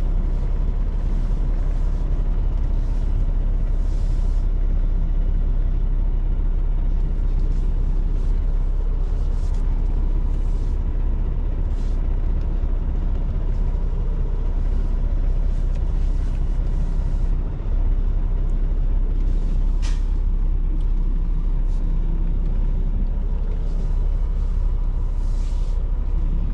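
Semi-truck's diesel engine running steadily at low speed while the rig is lined up at a dock door, heard from inside the cab, with brief hisses of the air brakes every few seconds.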